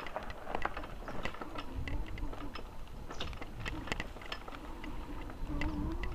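Bicycle clicking and rattling as it is ridden: light, irregular ticks several times a second over a low rumble, the sound of the freewheel and the bike's parts.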